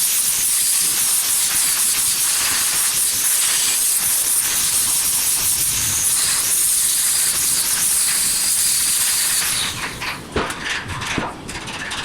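Welding arc crackling and hissing steadily, then stopping abruptly near the end, followed by a few light metallic clicks and knocks.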